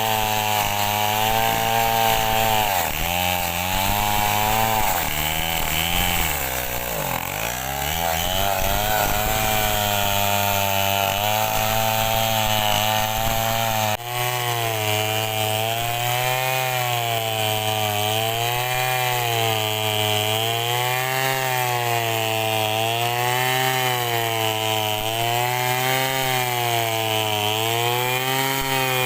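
Home-built chainsaw on a Stihl 070 engine, a big single-cylinder two-stroke, running under load as it saws mahogany. The engine pitch wavers as the cut bogs and recovers, sagging deeply about seven seconds in, then sways up and down steadily in the second half.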